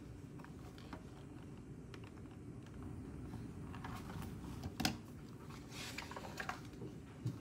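Paper pages of a spiral-bound notebook being leafed through by hand: soft rustles and small clicks, with one sharper tap about two-thirds of the way in.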